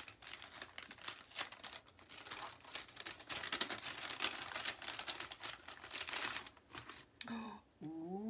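Kraft paper gift bag being opened by hand and the package inside unwrapped: a dense run of paper rustling and crackling that stops about six and a half seconds in.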